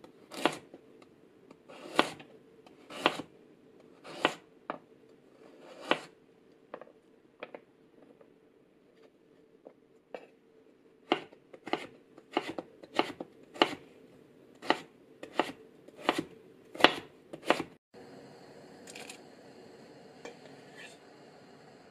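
Chef's knife slicing a carrot into strips on a cutting board: sharp knocks of the blade meeting the board, about one a second, then a quicker run of cuts. Near the end this gives way to a steady low hiss with faint high steady tones.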